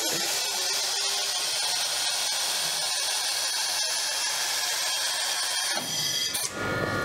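Hydraulic wheel-play tester under the car running, a steady high hiss and whine as its plates shake the suspension to show play in the control-arm bushings and bearings; the sound changes about six seconds in.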